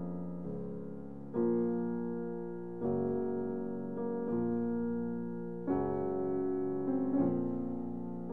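Slow background piano music: held chords, a new one struck about every one and a half seconds and left to fade.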